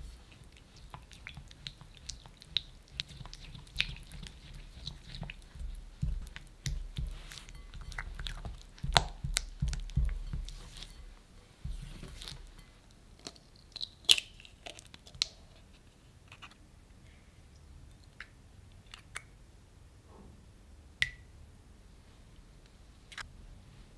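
Silicone spatula stirring milk into melted dark chocolate in a glass bowl: wet stirring sounds with small taps against the glass for about the first twelve seconds. After that, a few sharp clicks come as eggs are cracked and separated by hand.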